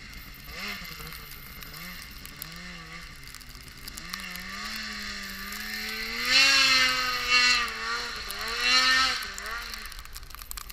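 Snowmobile engine revving on a steep snow hill climb, its pitch rising and falling with the throttle. It holds a steadier, louder note in the second half, with three loud bursts of throttle.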